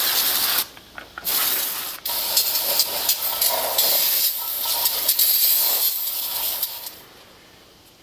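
Aerosol brake cleaner hissing as it is sprayed onto drum brake shoes and into the brake drum. There is a short burst, a second short burst about a second in, then one long spray of about five seconds that stops a second before the end.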